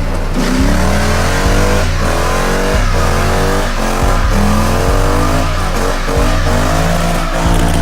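Car engine revving repeatedly, with tire squeal, over music with a steady low bass and a regular beat.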